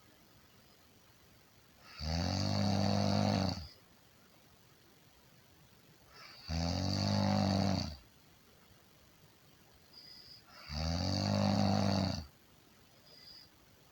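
A person snoring: three long, low-pitched snores about four seconds apart, each lasting about a second and a half.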